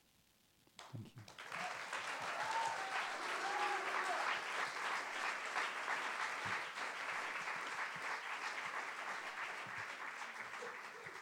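Audience applause with a few voices calling out. It starts after about a second of silence, runs on steadily, and thins out near the end.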